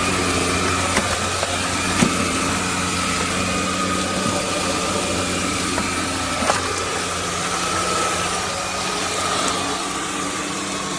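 CHEBIO V18 cordless stick vacuum cleaner running steadily, its motor giving a constant hum with a thin high whine on top, and a couple of sharp clicks along the way.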